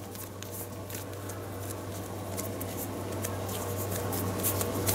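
Hands rolling and pressing a soft ball of bread dough, quiet squishing and skin rubbing with small ticks, over a steady low hum.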